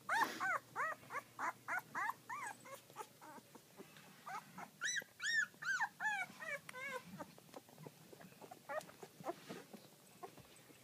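Two-week-old Bouvier puppies squeaking and whimpering in short, high-pitched squeals that rise and fall in pitch. There is a quick string of them at first, a louder cluster about five seconds in, then fainter scattered squeaks near the end.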